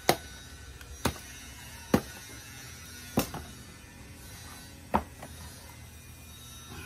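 A machete chopping dried coconut palm frond stalks into firewood: five sharp chops about a second apart, with a longer pause after the fourth.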